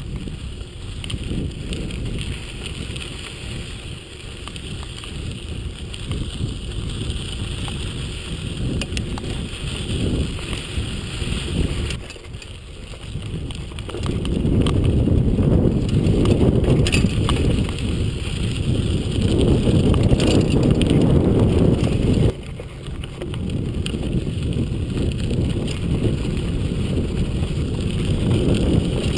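Mountain bike ridden along a dirt singletrack: wind buffeting the action camera's microphone over the rumble of tyres on dirt and small rattles from the bike. The noise grows louder about halfway through and drops abruptly about three-quarters of the way in.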